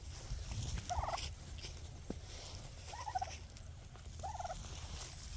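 Broad-breasted white turkeys calling: three short, warbling calls, about a second in, around three seconds in and just past four seconds.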